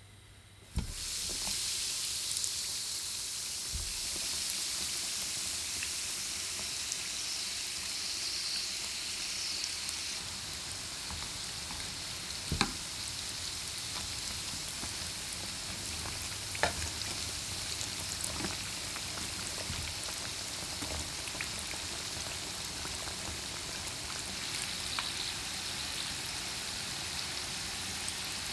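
Breaded mozzarella corn dogs deep-frying in hot oil: a steady sizzle that starts abruptly about a second in as they go into the oil. Two sharp clicks stand out midway, metal tongs knocking the pan as they turn the corn dogs.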